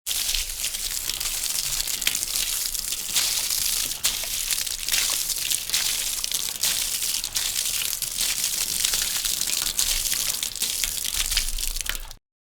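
Water sound effect: a steady hiss of rushing, splashing water, dotted with many small sharp splashes and crackles, that starts abruptly and cuts off suddenly near the end.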